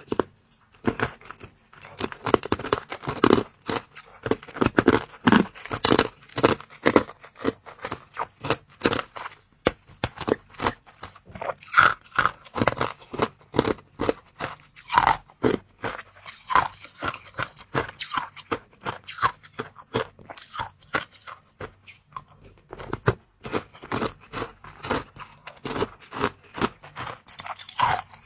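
Close-miked biting and chewing of something hard and crunchy: a dense run of sharp crunches, with a brief pause a little over twenty seconds in.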